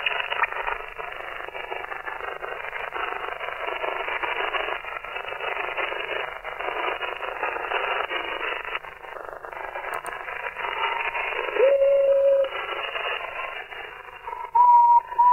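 Single-sideband receiver audio from a web SDR tuned to the 11 m CB band in USB: a steady, narrow-band hiss with faint garbled signals in it. Near the end come two short whistling tones, the first sliding up in pitch before holding, as the receiver is retuned across the band.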